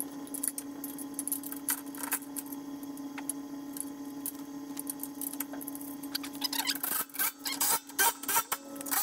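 Bolts being worked by hand on a steel mower-attachment frame: scattered metal clicks and scrapes that thicken into quick clicking over the last few seconds, over a steady hum.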